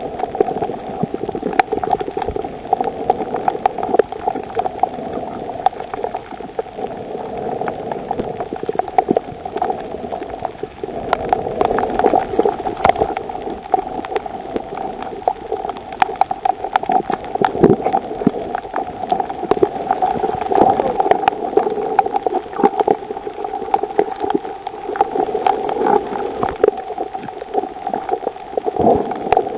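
Underwater sound on a coral reef: a steady, muffled water rush peppered with frequent sharp clicks and crackles.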